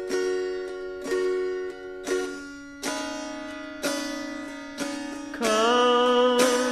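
Song intro on a plucked-string instrument: a chord struck about once a second, each left to ring and fade. About five and a half seconds in, a held, wavering melody note comes in over the chords and the music gets louder.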